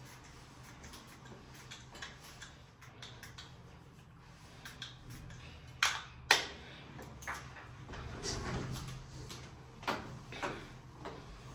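Scattered light clicks and knocks of small objects being handled, with two sharper clicks close together about halfway through.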